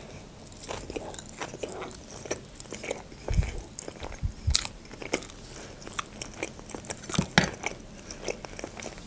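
Close-up mouth sounds of a person chewing a bite of salmon Philadelphia sushi roll: many small wet clicks and smacks. Two dull low thumps come about three and a half and four and a half seconds in.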